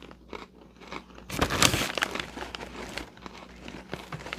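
A snack bag crinkling as a hand reaches into it for pretzel sticks, loudest for about half a second around the middle, with small rustles and clicks around it.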